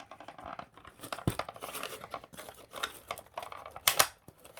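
Plastic parts of a Gtech AirRam MK2 vacuum being worked by hand, scraping, rattling and clicking as the drive mechanism is pushed and pulled out of the housing, with a sharp knock about a second in and a louder snap near the end.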